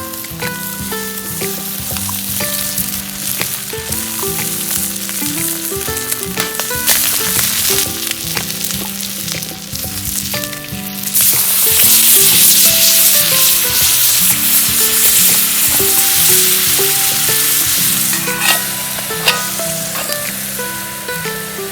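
Food sizzling in a frying pan, the sizzle growing much louder about halfway through, with background music playing.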